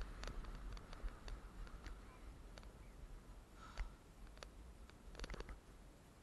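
Faint, scattered clicks and taps, with a small cluster about five seconds in, over a steady low rumble.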